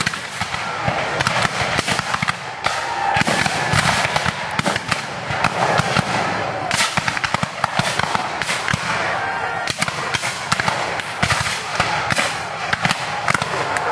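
Black-powder rifle-muskets firing blanks in a rolling, continuous fusillade: many shots crackling in quick, overlapping succession with no pause.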